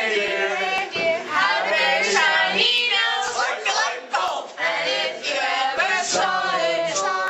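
A small mixed group of teenage voices singing together in chorus.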